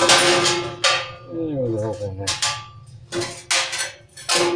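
Screwdriver knocking and scraping on the sheet-metal drum of a GE clothes dryer while a rear drum screw is worked out; the drum rings after each of several strokes.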